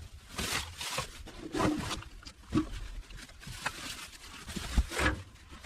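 Irregular rustling and crackling of overgrown brush and vines being pulled and broken during yard clearing, in uneven swishes a second or so apart with no engine running.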